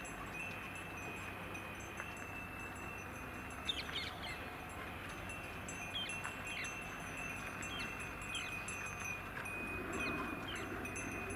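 Quiet rural outdoor ambience: a steady high-pitched drone runs under scattered short, sharp bird chirps, with no train passing.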